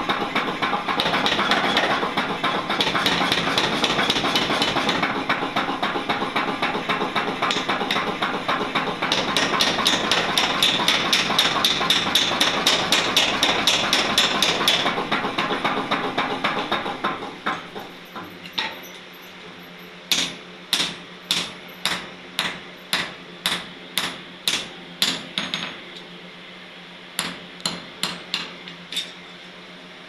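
Mechanical power hammer pounding a red-hot iron bar in rapid, continuous blows, stopping a little past halfway. Then a hand hammer strikes the hot iron on an anvil in separate blows about two a second, in short runs with brief pauses, over a low steady hum.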